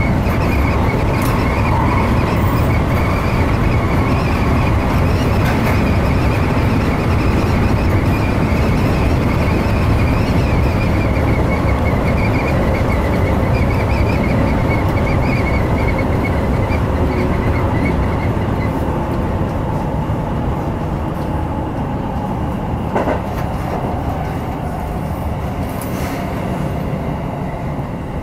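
Seibu Shinjuku Line electric commuter train running along the track, heard from inside the front car behind the cab: a steady running rumble with a wavering whine over it. It eases and grows quieter about two-thirds of the way through, with a couple of short clicks from the rails near the end.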